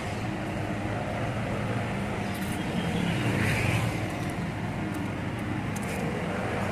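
Road traffic: a steady rumble of passing cars, swelling to its loudest about three and a half seconds in as a vehicle goes by.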